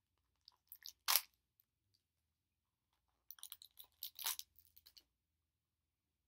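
A small plastic blind-bag packet being torn open by hand: one sharp rip about a second in, then a run of tearing and crinkling from about three to five seconds in.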